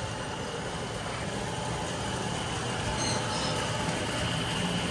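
A steady low hum with a hiss, with brief faint high tones about three seconds in.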